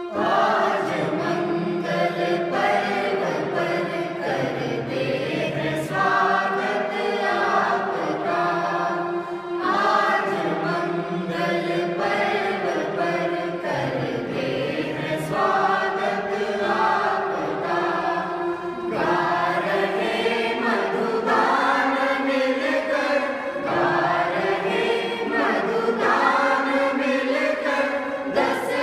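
A small mixed group of young men and women singing together, accompanied by an electronic keyboard.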